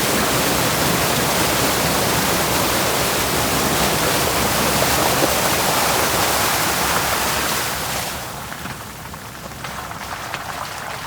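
A steady, loud rushing hiss, easing off about eight seconds in.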